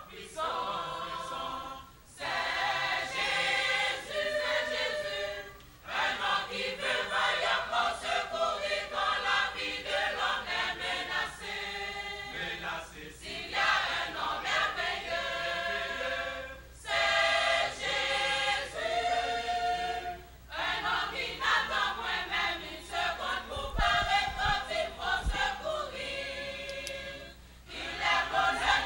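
Church choir singing in full voice, in phrases of a few seconds broken by short breaths between them. A few low bumps come about three-quarters of the way through.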